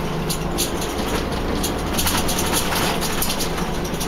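Volvo Olympian double-decker bus heard from its upper deck, running: a steady low engine drone with road noise and light rattling ticks, growing a little louder about two seconds in.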